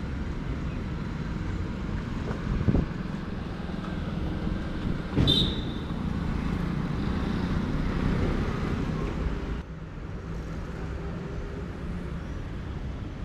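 Steady low rumble of a vehicle engine and road traffic, with a knock about three seconds in and a sharp click with a short high beep about five seconds in.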